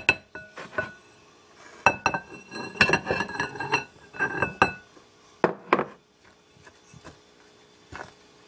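A spoon clinking and scraping against a mixing bowl in irregular bursts while stirring flour and salt into the wet play-dough mixture.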